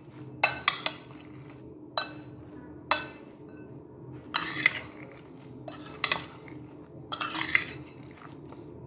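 Metal spoon stirring a chaat of boiled chickpeas, potatoes and chopped vegetables in a large bowl: irregular clinks and scrapes of the spoon against the bowl every second or so, over a faint steady low hum.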